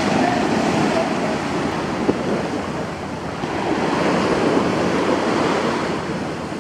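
Sea waves washing ashore, a steady rushing surf, with wind buffeting the microphone.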